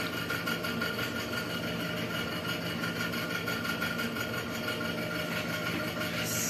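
A steady machine hum with a constant high whine in it, unchanging throughout, and a short hiss about six seconds in.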